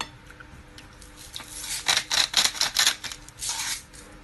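Close rubbing and scraping on the recording phone as a hand handles it: a quick run of six or seven short rasps about two seconds in, then one longer rasp near the end.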